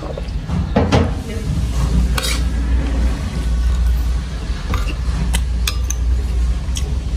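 Metal spoon clinking and scraping against ceramic bowls while a person eats rice, with several sharp clinks in the second half, over a steady low hum.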